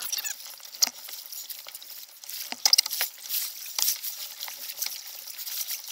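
Choppy sea water slapping and splashing against a kayak's hull as a hooked shark tows it through the waves, with irregular sharp splashes over a steady wash.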